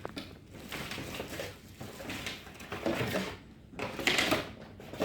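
Cardboard box being opened and its contents handled: a series of short rustling and scraping sounds, the loudest about four seconds in.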